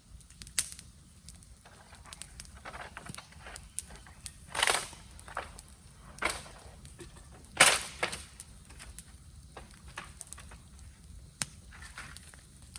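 Bamboo burning in a bonfire, crackling and popping irregularly, with two louder bursts a few seconds apart near the middle.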